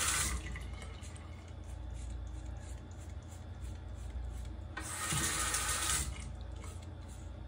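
Bathroom sink tap running as a razor is rinsed, cut off just after the start; it runs again for about a second around five seconds in.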